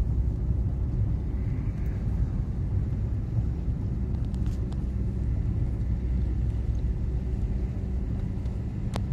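Steady low rumble of a moving car's engine and tyre noise heard from inside the cabin while driving, with a single sharp click near the end.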